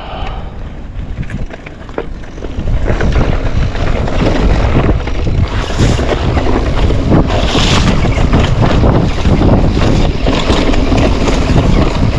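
Wind rushing over the microphone as a mountain bike sets off down a rough trail, with many small knocks and rattles from the bike over the ground. It gets much louder about two and a half seconds in as the bike picks up speed.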